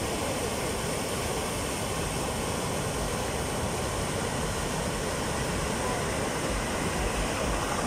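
Water rushing steadily over a low concrete weir, a continuous even wash of white-water noise.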